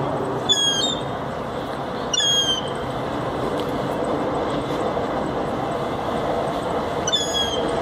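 A Tyne and Wear Metro train approaching on the rails, a steady rumble with three short high-pitched squeals: about half a second in, about two seconds in and near the end.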